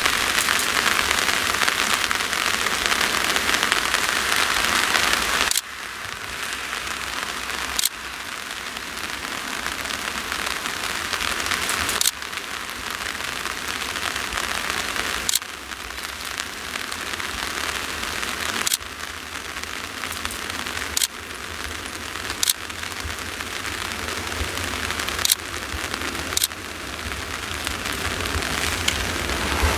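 Heavy, steady rain hissing, with a dozen sharp ticks scattered through it. A low rumble grows under the rain over the last few seconds.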